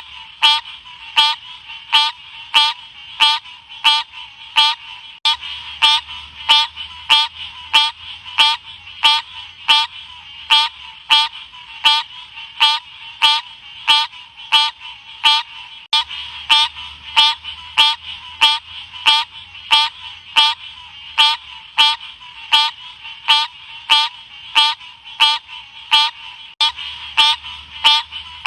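Odorrana livida frog calling: short chirping calls repeated evenly, nearly two a second, each with a quick upward slide in pitch.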